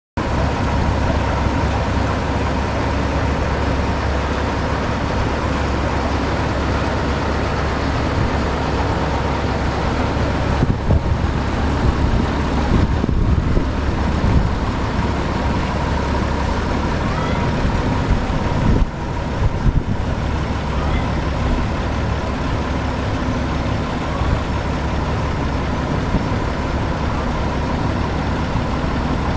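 Combine harvester engines running steadily: a 1960s Claas Matador Gigant close by, with a Bizon Rekord Z058 driving in. A deep, even rumble with a steady high whine over it.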